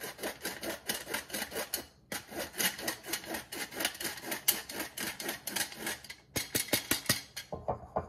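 Hand-worked stainless steel flour sifter sifting flour and other dry ingredients into a glass bowl: a fast, even run of scratchy rasping clicks, about six a second, pausing briefly about two seconds in and again after six seconds.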